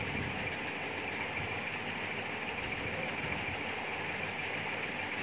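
Steady, even mechanical hum with no breaks or changes.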